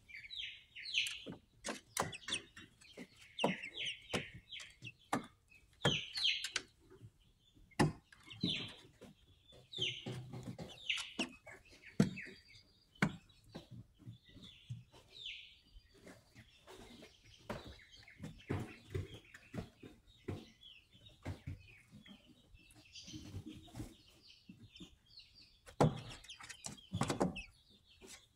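Young White Leghorn chickens cheeping in short, falling chirps while they peck, their beaks tapping sharply on a hard plastic floor. The loudest taps come about eight, twelve and twenty-six seconds in.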